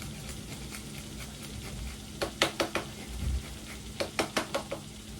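A utensil clinking and tapping against a dish or pan in two quick runs of four or five taps, one about two seconds in and one near the end, over a low steady kitchen hum.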